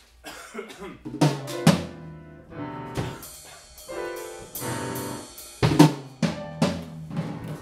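Loose, unmetered free improvisation on a drum kit: scattered loud drum and cymbal hits, with sustained pitched notes from other instruments ringing between them, most of all about three to five seconds in.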